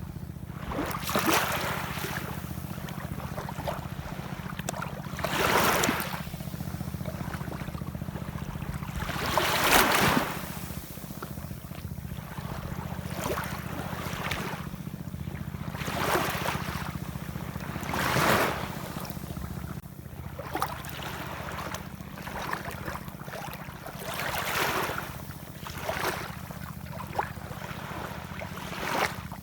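Ocean waves washing ashore, surging and falling back every few seconds over a steady low rumble, with the biggest wave about ten seconds in.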